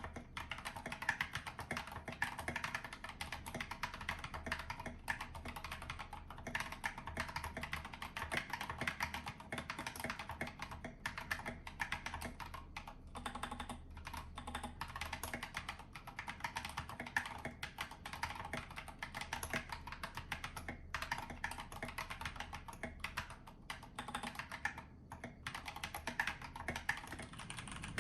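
Epomaker GK96S mechanical keyboard being typed on fast and continuously, a dense run of key clacks broken by a few short pauses.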